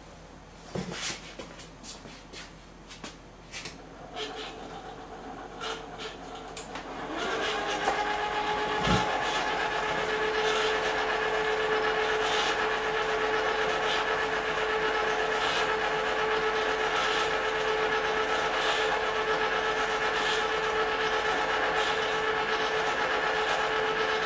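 Electric popcorn machines' agitator motors and top-mounted stirring gears running with a steady whine. A fainter whine comes in about four seconds in, then a louder one starts about seven seconds in and rises briefly in pitch before holding steady, with faint regular ticking. A few scattered clicks come before it.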